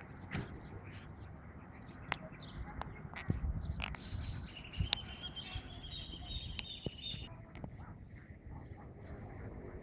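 Birds chirping and calling over a low, noisy rumble. A steady high trill runs for about three seconds midway. Scattered sharp ticks are heard throughout.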